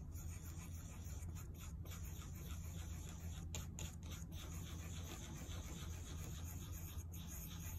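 Thin spatula stirring and scraping wet pigment paste around an eyeshadow pan: faint, repeated scratchy strokes over a steady low hum.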